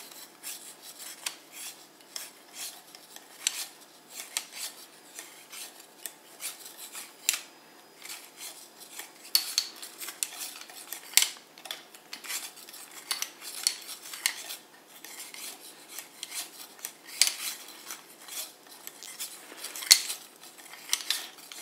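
Vintage wooden gymnast toy being worked: its jointed wooden figure flipping over the twisted strings between the two sticks, giving a run of light, irregular wooden clicks and clacks, several a second.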